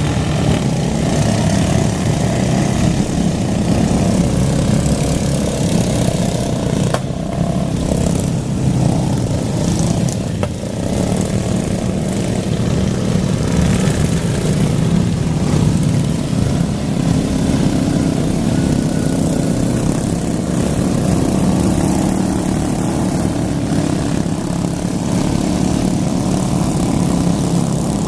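Several racing lawn mower engines running together at speed, a loud steady drone of small single-cylinder motors that swells and fades as the mowers pass.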